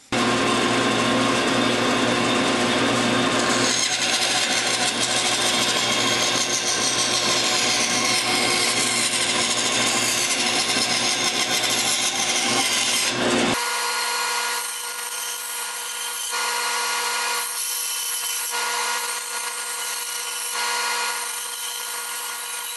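Delta bandsaw running and cutting a wooden block, with a dust collector running alongside. About halfway through, the sound changes suddenly: the deep rumble drops out, leaving a steadier hum with the blade cutting, rising and falling a little.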